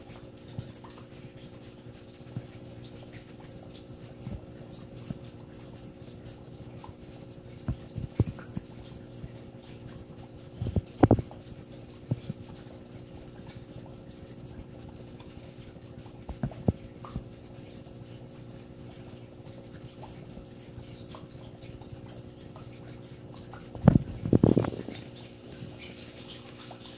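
Steady hum of aquarium equipment, such as a pump or filter motor, with scattered sharp taps and knocks; the loudest come in quick clusters about 11 seconds in and again about 24 seconds in.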